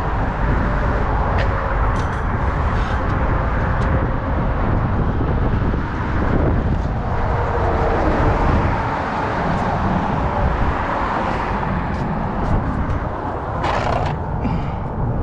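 Steady road traffic with a heavy low rumble, and a few faint clicks.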